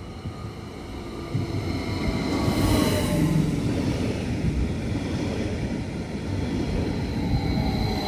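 TILO ETR 524 (Stadler FLIRT) electric train running into the platform and past at close range: a low rumble of wheels on the rails, loudest about three seconds in, with an electric motor whine falling in pitch as it slows.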